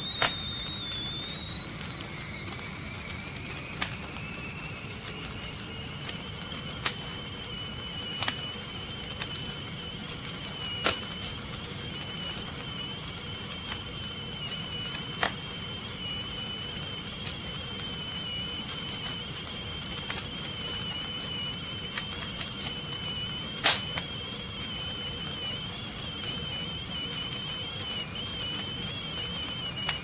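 Stovetop tea kettle whistling at the boil. Its pitch rises over the first few seconds, then holds with a slight waver. Underneath runs the low rush of a gas burner flame, with a few sharp crackles.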